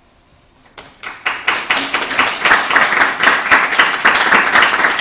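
Audience applause. It starts about a second in and quickly builds to steady, dense clapping.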